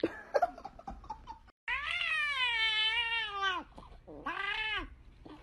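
Cats meowing: a few short, quick cries, then after a brief break a long drawn-out meow of about two seconds that rises and falls in pitch, followed by a shorter second meow.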